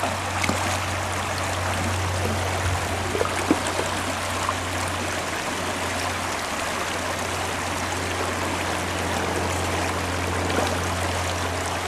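Shallow creek water rushing and splashing over rocks, a steady rush.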